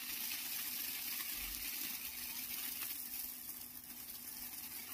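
Water jet from a hose spraying onto potted cactus grafts in a plastic crate: a steady hissing spray.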